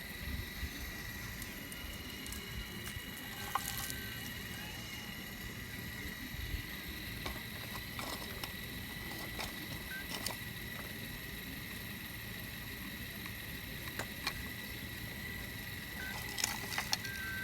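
Caterpillar digging machine working in shale: a steady low running rumble with a constant high whine over it, and scattered short clicks and knocks.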